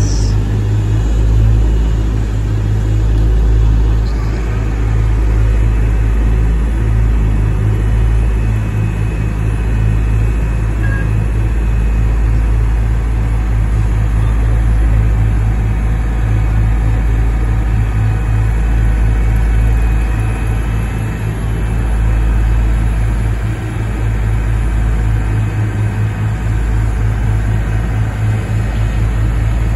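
Diesel engines of a Cat AP655D tracked asphalt paver and a tipped dump truck running steadily under load, a loud, deep low rumble.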